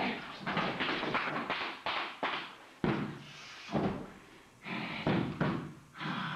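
A person thrown to the floor in a jujitsu takedown: a run of quick scuffs and knocks as the two grapple, then a heavy thud of the body landing about three seconds in.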